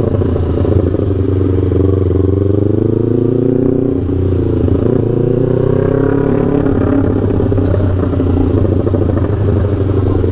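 Yamaha R3's parallel-twin engine through a FullPro aftermarket exhaust, running continuously with its engine speed gently rising and falling. The pitch dips about four seconds in, then climbs again.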